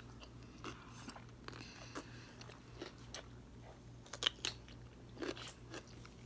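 Crunching bites and chewing of Kool-Aid pickle slices, a run of short sharp crunches with the loudest a little after four seconds in.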